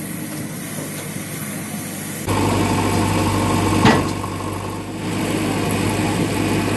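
JCB 3DX backhoe loader's diesel engine running steadily, getting louder about two seconds in, with one sharp knock a little before four seconds in.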